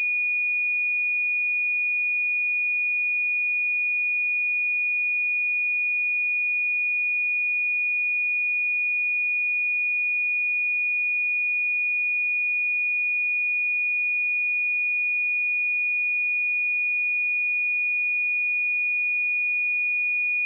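A pure 2454 Hz sine-wave test tone, held at one pitch and a constant level throughout, used to check speakers or headphones.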